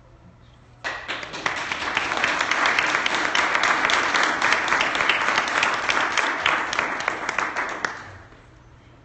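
Audience applauding: the clapping starts suddenly about a second in, holds for several seconds and dies away near the end.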